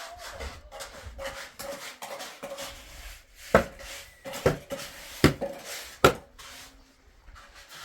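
Scraping and shuffling, then four sharp knocks, evenly spaced a little under a second apart, as of hard objects struck together.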